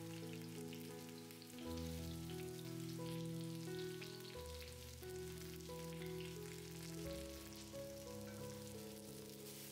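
Eggplant frying in hot oil: a steady sizzling crackle of fine pops. Background music of slow held chords plays over it and is the more prominent sound.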